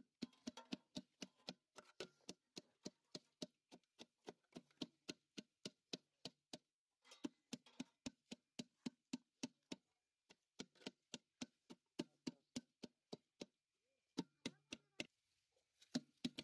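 Hand masher pounding chopped apples in an aluminium pot: a rapid, steady knocking at about four strokes a second, with a few short pauses, stopping about a second before the end.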